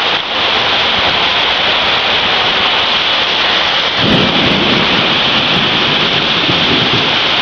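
Heavy rain pouring with a steady hiss, joined about halfway through by a deep, continuous rumble.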